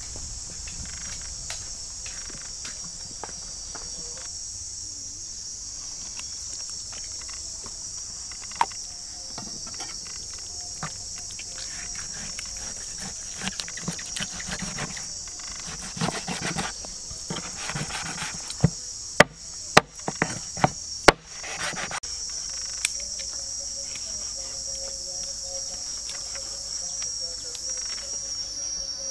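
Steady, high-pitched chorus of insects chirring in the forest. A cluster of sharp knocks and clicks stands out about two-thirds of the way through.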